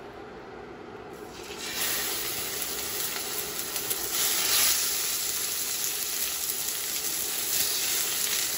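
Raw pork chops sizzling as they are laid one after another into a hot, oiled cast iron skillet. The sizzle starts about a second and a half in and grows louder about four seconds in as the next chop goes down.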